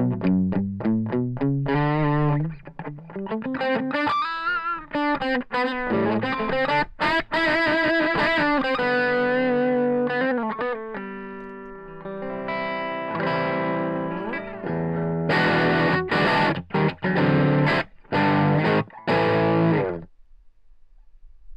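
Distorted electric guitar played through a JetCity JCA20H tube amp head into a Bugera 212V-BK 2x12 cabinet. It opens with quick choppy chugs, moves to bent and wavering lead notes and held notes, then hits heavy chords that cut off abruptly shortly before the end.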